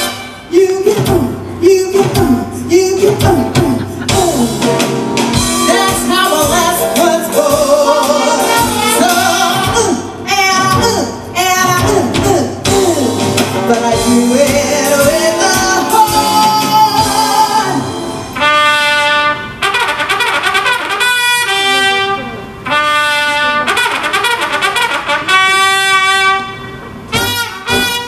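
Brassy show-tune band music. In the last third a trumpet plays loud, held notes in short phrases with brief gaps between them.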